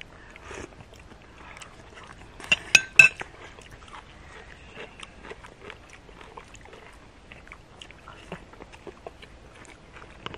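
Metal spoons clinking and scraping against plates and bowls during a meal, with a cluster of sharper, ringing clinks about two and a half to three seconds in.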